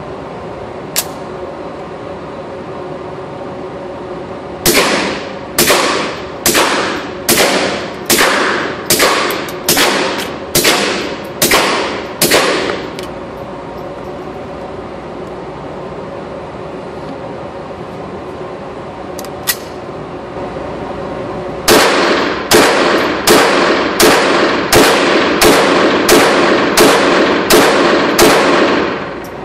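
Suppressed .22 LR pistol shots: two strings of about ten shots each, fired at a steady pace of roughly one shot every two-thirds of a second, mixing subsonic and CCI Mini-Mag high-velocity rounds. Under them runs the steady hum of the indoor range's ventilation.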